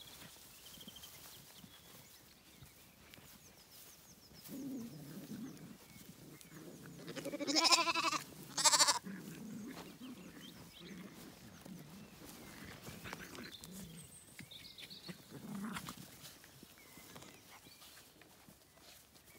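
Zwartbles lambs bleating: several calls, the loudest a long drawn-out bleat about halfway through that breaks off briefly and resumes.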